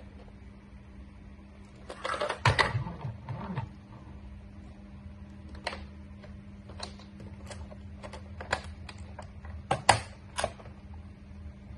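Hard plastic clicks and knocks from a toy car-carrier truck and its clear plastic lid being handled: a cluster of knocks about two seconds in, then single sharp clicks scattered through the rest, over a steady low hum.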